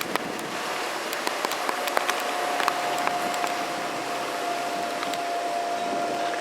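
Boat running at speed under a Suzuki 150 hp outboard: a steady rush of wind and water with a steady high whine that comes in about two seconds in and holds, and scattered sharp ticks.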